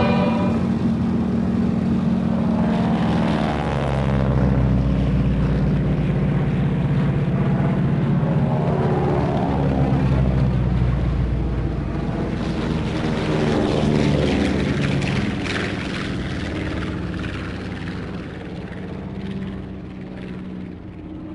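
Propeller aircraft's piston engine running, its pitch falling twice as planes pass by, then fading away over the last few seconds.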